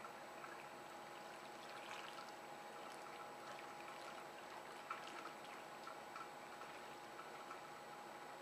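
Faint water trickling and lapping in a backyard spa beside a swimming pool, with light irregular ticks.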